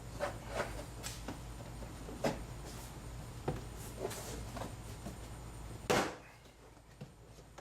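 Plastic trim pry tool working a car door panel's retaining clips loose: scattered clicks and knocks, with a louder pop about six seconds in as a clip lets go. A low steady hum runs underneath and stops at that point.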